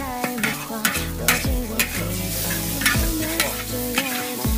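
A long-handled metal spatula scraping and clanking against a large iron wok as a batch of meat and vegetables is stir-fried, with the food sizzling. The strikes come irregularly, about two to three a second.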